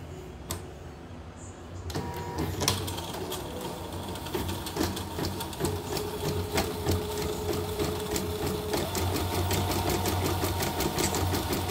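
Portable computerized embroidery machine, cover off, starting up about two seconds in and stitching steadily: a fast, even clatter of needle strokes over a motor hum. It is running after its broken timing belt and badly worn bobbin hook (sekoci) were replaced.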